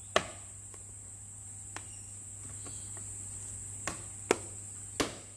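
Plastic side-mirror cover of a Ford Focus being pressed onto the mirror housing, its clips snapping in with five sharp clicks: a loud one just after the start, a faint one, and three in quick succession in the last second and a half. A steady high-pitched whine and low hum sit underneath.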